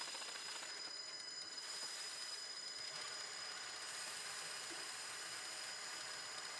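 Small metal lathe running with a steady high-pitched whine, while an abrasive pad is pressed against the spinning crankshaft to polish it, giving an even hiss that grows a little about two seconds in.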